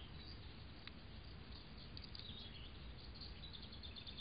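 Faint outdoor background: a steady low hiss with scattered brief high chirps, including a quick run of ticks about three seconds in.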